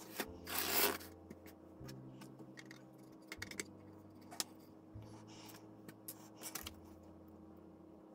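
Small handling sounds at a hobby workbench while a plastic model ship is rigged with thread: a brief rustling scrape about half a second in, then scattered light clicks and taps.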